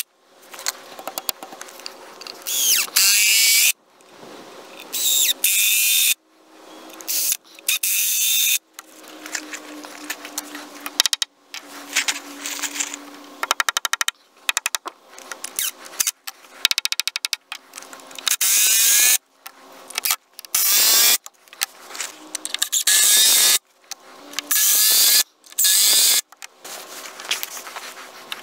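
Cordless drill running in repeated bursts of one to two seconds with short pauses between them, its motor pitch rising and falling as it drives fasteners into heavy timber.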